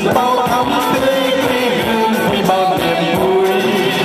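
A man and a woman singing a duet through a PA system, backed by an electronic keyboard with a steady beat.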